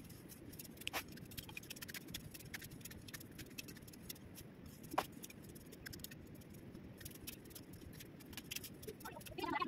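Grass being cut by hand with a sickle: a faint, quick run of snipping and rustling strokes, with a sharper cut about a second in and another about five seconds in.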